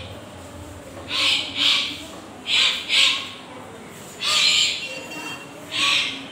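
Sharp, hissing breath exhalations from karateka performing a Goju-ryu kata, pushed out with the techniques. About six short bursts over five seconds, some in quick pairs.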